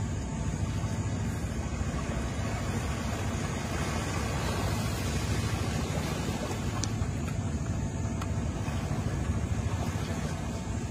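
Steady low rumble of wind on the microphone, mixed with small waves washing onto a sandy beach.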